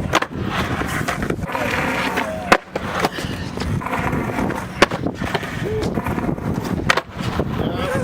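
Skateboard wheels rolling on concrete, broken by four sharp clacks of the board about two seconds apart, from attempts at a 5-0 shove-it.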